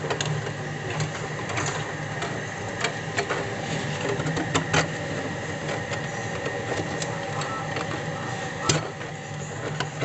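Scattered light clicks and taps from hands working the refrigerator's pipes and tubing by the compressor, with one sharper click near the end, over a steady low hum.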